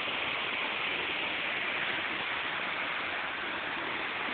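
Probiy waterfall on the Prut river: water rushing steadily over the rocks, a dense even hiss.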